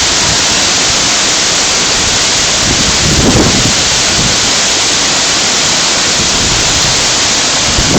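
Steady loud rushing of a big waterfall plunging into its pool.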